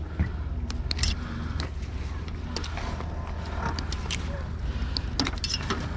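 Plastic buckle clips on a sailboat's stack pack sail cover being unclipped by hand: a scatter of sharp clicks and snaps with rustling of the cover fabric, over a steady low rumble.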